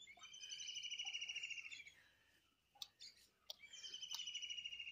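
A bird singing a rapid, pulsing trill twice, each phrase lasting just under two seconds and sliding slightly down in pitch.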